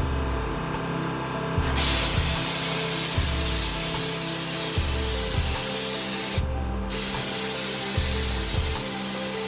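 Air-powered spray gun spraying Raptor liner bed-liner coating, a loud steady hiss that starts about two seconds in, breaks off briefly near seven seconds as the trigger is released, and starts again.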